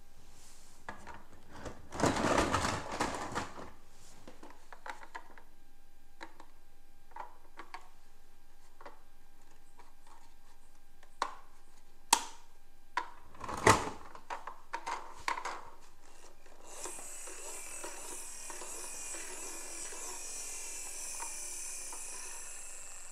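Plastic toy emergency vehicles clattering and knocking together in a cardboard box as they are handled. There is a burst of rattling about two seconds in and a few sharp knocks in the middle. A steady high whirring comes in near the end.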